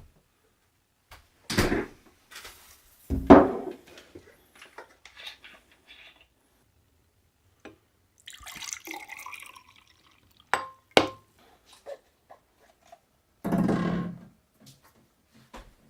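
Kitchen handling sounds picked up by a camera's built-in microphone: two heavy knocks early on, a stretch of liquid hissing in the middle, two sharp ringing glass clinks, then a short burst of cola pouring into a glass near the end.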